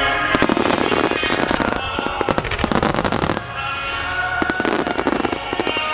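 A star mine barrage of fireworks: many shells bursting and crackling in quick succession, in three dense clusters separated by short lulls, with the display's music playing faintly underneath.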